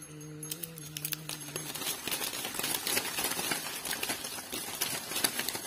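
A low, held moan from a man's voice for about a second and a half, then a dense, rapid crackling and rustling like dry leaves and twigs being shaken or snapped.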